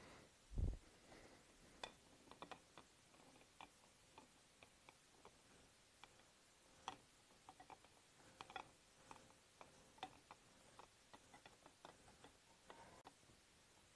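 Near silence: quiet room tone with scattered faint, irregular clicks and taps, and one low thump about half a second in.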